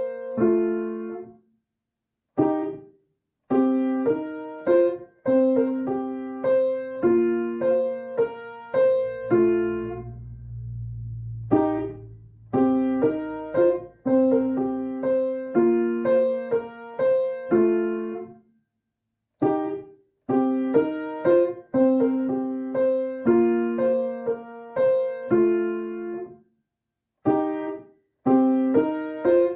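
Piano playing the iPhone ringtone melody as repeated short phrases of notes, broken by a few brief pauses. A low note is held for a few seconds about ten seconds in.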